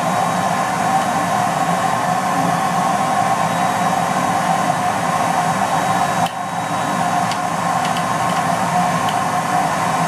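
Household vacuum cleaner running steadily, its nozzle held close to a disassembled robot vacuum to suck out dust brushed from its sensors. The sound dips briefly about six seconds in.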